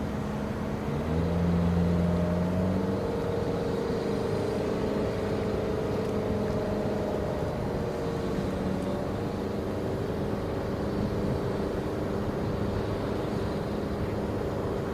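Engine drone, steady with several pitched hum tones whose pitch shifts a little. Louder with a deeper hum about one to three seconds in.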